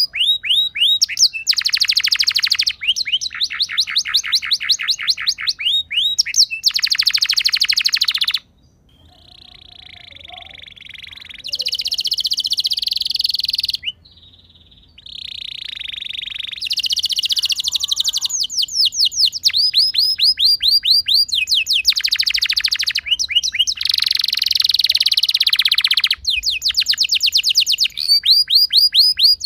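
Domestic canary singing long rolling trills: rapid runs of quickly repeated notes, phrase after phrase. There is a softer, quieter passage about a third of the way in.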